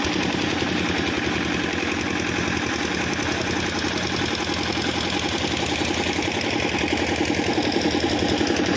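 Small engine running steadily with a fast, even beat, driving one of the pressure water pumps used to wash flood silt off the ghat.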